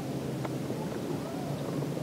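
Steady wind rumble on the microphone on an open boat deck, with a single faint click about half a second in.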